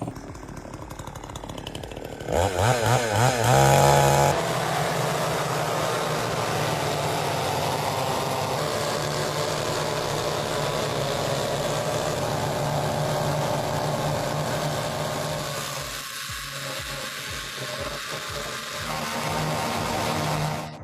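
A chainsaw revving with a wavering pitch about two seconds in, then running steadily at high speed until it cuts off near the end.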